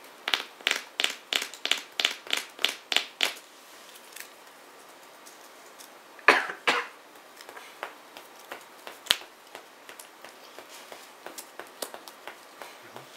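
Sleeved trading cards handled on a playmat: a quick, even run of about ten sharp snaps, roughly three a second, then a couple of louder scrapes about six seconds in, one sharp click about nine seconds in, and scattered soft taps.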